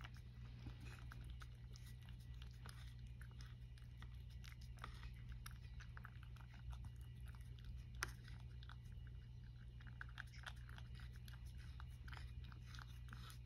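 A cat eating from a plate: faint, irregular small clicks of chewing and licking, with one sharper click about eight seconds in, over a steady low hum.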